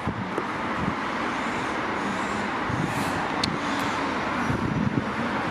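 A train running past with a steady rumble and a low, even hum, plus a few faint clicks about three seconds in.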